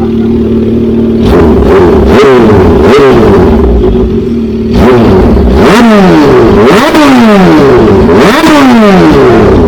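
Kawasaki Z H2's supercharged inline-four through an Orion aftermarket exhaust, idling steadily and then blipped hard several times, each rev rising sharply and falling back, with a short lull in the middle.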